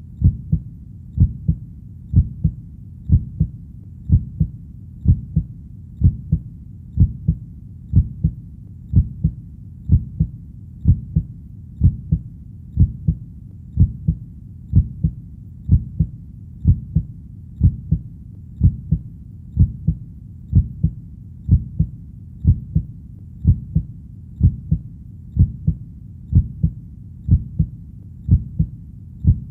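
Heartbeat beating steadily at about one beat a second, each beat a low double thump (lub-dub).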